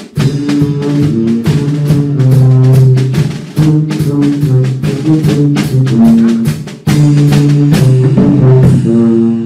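A sousaphone and a drum kit playing together: the sousaphone plays a bass line of low held notes that change pitch every beat or two, over a busy drum beat with cymbal hits.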